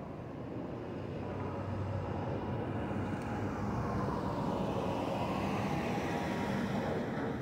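Jet airliner passing overhead: a steady engine roar that grows gradually louder.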